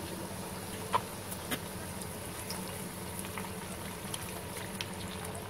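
Besan pakoras deep-frying in hot oil in a kadhai: a steady sizzle and bubbling with small crackles, and two sharper clicks about a second in.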